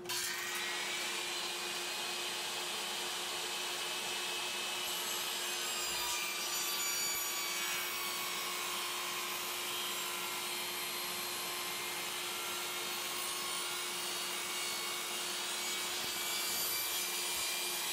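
Table saw running with a steady hum while its blade slowly cuts through a stained wooden chair-back upright held upright in a jig.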